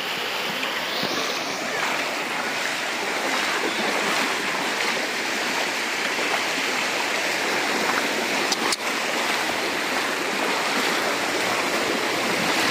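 Brown floodwater rushing fast and steadily over a road, churning into whitewater. A single sharp click sounds about nine seconds in.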